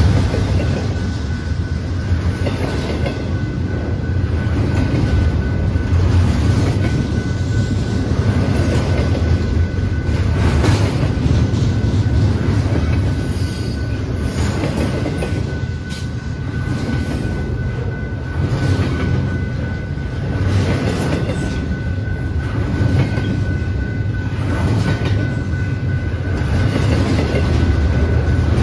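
Double-stack intermodal well cars of a freight train rolling past close by: a steady low rumble of steel wheels on rail, with a clack now and then as the wheels pass over joints. A faint steady high-pitched ring runs under it.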